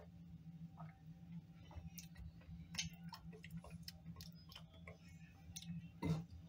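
Faint, irregular clicks and ticks from a glass of beer being picked up and handled, with one louder knock about six seconds in.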